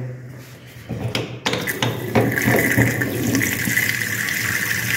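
Kitchen faucet opened about a second and a half in, then water running steadily from the spout into a stainless steel sink. The flow does not ease off, a sign that closing the outside shutoff valve seems not to have cut the water supply.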